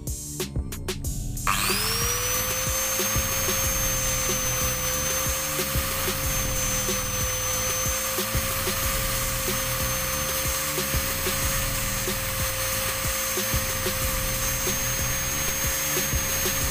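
Angle grinder fitted with a sanding disc spins up about a second and a half in, then runs steadily at high speed. It is being used to flatten the warped mating face of a carburetor body so the gasket seals and fuel stops seeping. Background music with a beat runs underneath.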